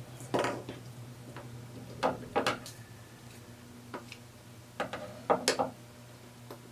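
Handling noise: a handful of short clicks and knocks as things are picked up and set down, in clusters about two and five seconds in, over a steady low hum.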